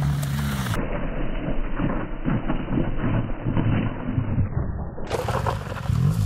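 BMW R 1200 GS flat-twin motorcycle engine revving up and down repeatedly, with the rear tyre spinning and sliding on loose gravel.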